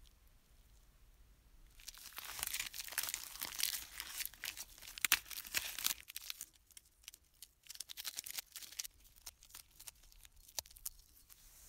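Masking tape being pulled off, torn and crinkled as it is wrapped and pressed around a small metal model-train part: a dense run of tearing and crinkling starting about two seconds in, then sparser crackles.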